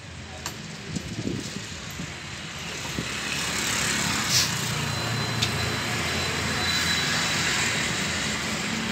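Steady engine-like rumble and hiss that swells about three to four seconds in and then holds, with a few light knocks in the first seconds.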